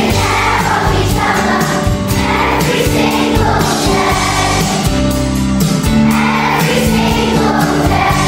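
Background music: a song sung by a choir over a steady beat.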